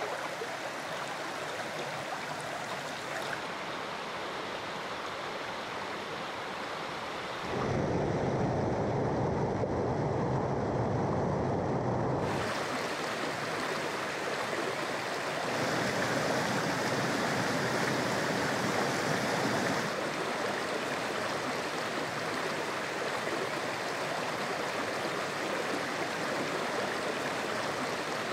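Rushing water of a small, rocky trout stream running over stones and small cascades. It is a steady wash whose tone and loudness change abruptly several times, louder and deeper for a few seconds about eight seconds in.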